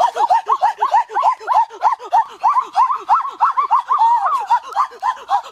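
A person's voice making a rapid run of short cries, each rising and falling in pitch, about four or five a second, like excited snickering.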